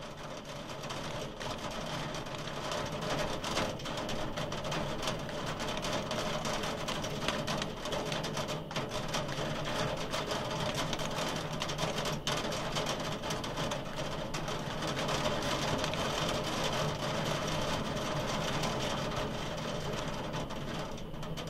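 Hail and rain drumming on a window: a dense, rapid patter of small impacts over a steady rush that keeps up throughout.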